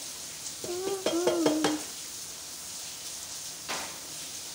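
A pot of egusi soup sizzling on the stove while a metal spoon stirs and scrapes against the metal pot, giving a short squeak with clicks about a second in. A single knock comes a little before the end.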